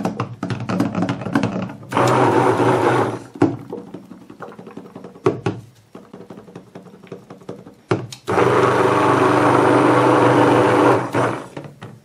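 Hand-held stick blender running in two bursts in raw soap batter of oils and lye solution, about a second and then about three seconds, blending the mixture toward trace. Short knocks and taps come between the bursts.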